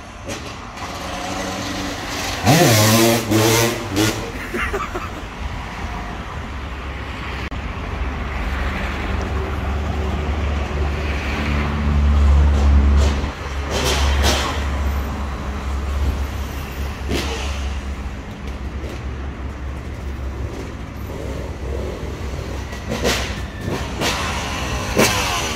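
Yamaha YZ250 two-stroke motocross bike out on a ride. Its engine revs up with a rising pitch about three seconds in. A deep rumble swells and fades in the middle, with a few sharp knocks.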